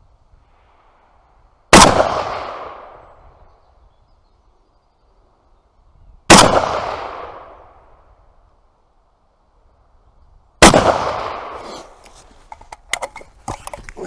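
Three single shots from a 7.62×54R SVD Dragunov semi-automatic rifle, about four and a half seconds apart, each echoing off for a couple of seconds. After the third shot come several light clicks and knocks.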